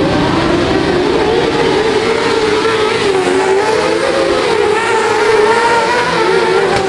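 Several autocross sprint-car engines racing on a dirt track at high revs, their pitch wavering up and down as the cars accelerate and lift through the corners.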